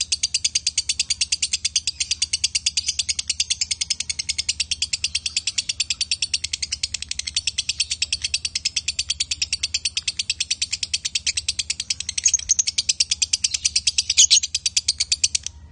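Lovebird giving a long, unbroken rapid chatter of sharp high notes for about fifteen seconds, stopping abruptly near the end: the drawn-out 'ngekek' song prized in konslet lovebirds.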